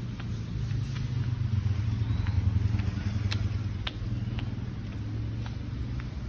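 A motor vehicle's engine running with a steady low hum that swells about two seconds in and then eases off, with light footsteps on pavement.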